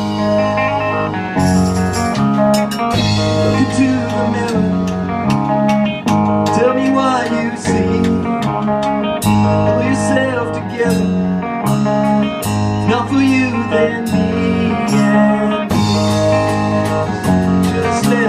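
Live rock band playing: electric guitars, bass guitar and drum kit, with a lead guitar line that bends up and down in pitch over a pulsing bass and steady cymbal strikes.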